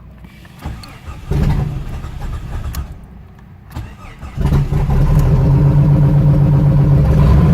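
Jeep Cherokee engine briefly firing about a second in and fading, then starting again about four seconds in and settling into a steady idle. The owner says this engine has a rough idle and stalls whenever it is given throttle.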